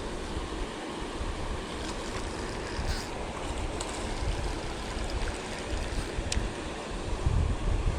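Steady rushing of river water, with wind rumbling on the microphone and a few faint clicks.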